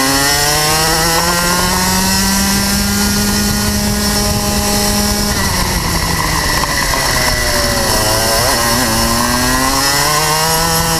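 Rotax Max 125 cc two-stroke kart engine under throttle, heard from on board: the revs climb steadily, cut off sharply about five seconds in as the driver lifts for a corner, then build back up toward the end.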